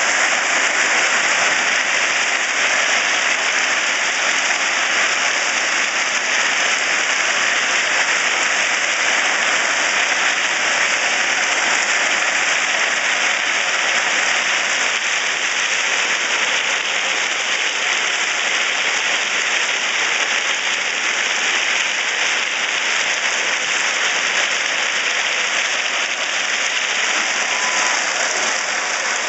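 Steady rushing hiss of crushed ballast stones scraping and sliding along the steel blade of a railway ballast plow as it moves through the track bed.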